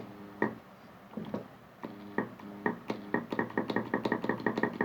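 Washing machine water inlet solenoid valve clicking and humming in short repeated pulses as its coil is powered, the pulses coming quicker in the second half. The hum shows the valve coil is working; a valve that stays silent would be faulty.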